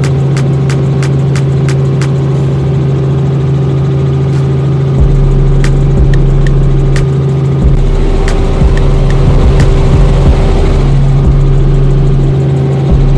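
Aircraft engine droning steadily, heard from inside the cabin. A run of light, regular ticks falls in the first couple of seconds, and from about five seconds in there is a low, gusty rumble of wind on the microphone.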